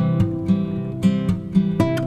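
Background music: acoustic guitar plucking and strumming chords.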